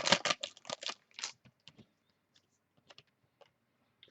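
A trading-card foil pack being torn open and crinkled, with a rapid run of rustling strokes in the first second or so. A few light clicks of cards being handled follow.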